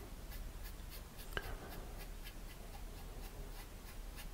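Paintbrush loaded with acrylic paint scratching and scrubbing across the painting surface in short, quick strokes, about four a second; faint.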